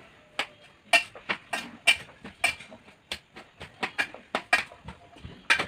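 Hands mixing chopped raw vegetables with ground coconut in a metal pot: a run of short, irregular clicks and squishes, several each second.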